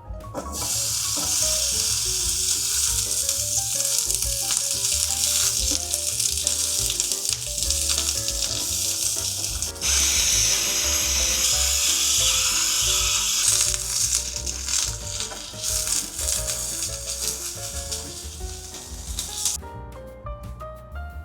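Food sizzling as it fries: a loud crackling hiss that starts about half a second in, shifts abruptly about ten seconds in, and stops shortly before the end.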